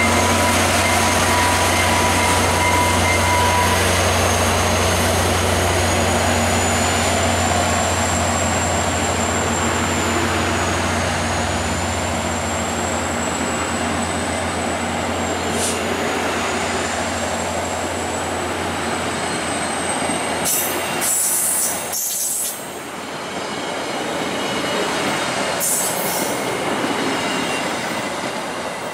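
An F40PH-2 diesel locomotive and LRC passenger cars rolling out of a station: a low, steady engine drone that fades after about twelve seconds as the locomotive draws away, under the rumble of the cars going by and a thin, high wheel squeal that wavers in pitch. Near the end come a few short hissing bursts as the last cars pass.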